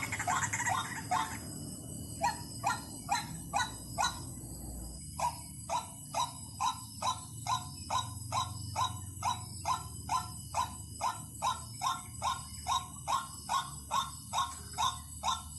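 White-breasted waterhen calling in a long, even series of short, harsh notes, about two a second, with a brief pause about five seconds in. This is a decoy call recording of the kind used to lure the bird.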